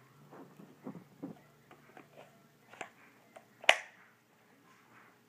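Handling noise as a pistol is worked into a polymer duty holster: scattered soft knocks and rustles, then one sharp click about three and a half seconds in.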